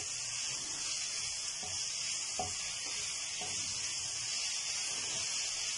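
Diced chicken, green capsicum and onion sizzling in a hot non-stick frying pan as they are stir-fried with a wooden spatula: a steady sizzle with a few soft scrapes of the spatula against the pan.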